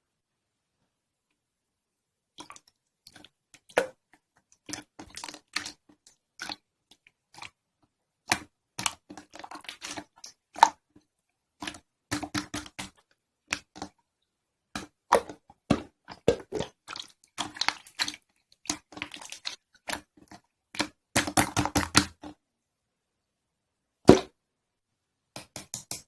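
Slime being squeezed and pressed by hand, making irregular wet clicks and pops in quick clusters with short silent pauses, thickest in a fast run a little before the end.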